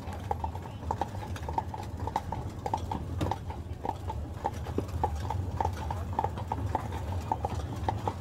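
Carriage horse's hooves clip-clopping at a walk on a gravel street, about four hoof strikes a second, over a steady low rumble.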